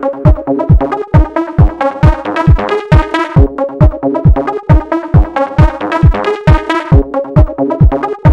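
Electronic dance music with a steady kick drum on every beat, a little over two beats a second, under repeating synth notes.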